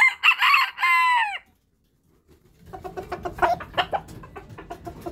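A rooster crows, a loud call of just over a second that drops in pitch at the end. After a short gap, a rooster clucks in many short, repeated notes.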